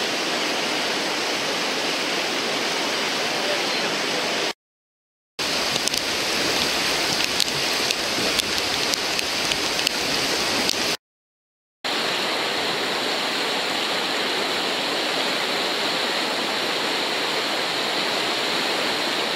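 Loud, steady rush of a whitewater river wave, broken twice by a sudden second-long silence. Between the two silences, short sharp splashes from a kayak working the wave stand out above the rush.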